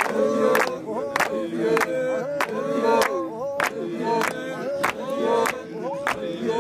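Group of voices singing in chorus in a Samburu traditional style, over a sharp clap-like beat about one and a half times a second.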